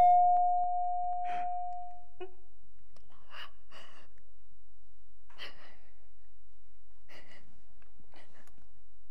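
A woman crying into a tissue, with short sobbing breaths and sniffles every second or two. Early on there is a steady held tone, the loudest sound here, which swells and then fades out about two seconds in.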